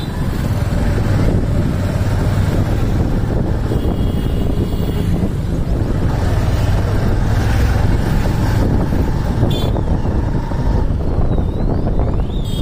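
Steady low rumble of a vehicle's engine and road traffic, with wind on the microphone, heard from a vehicle moving along a road among motorcycles. Faint gliding high tones come in near the end.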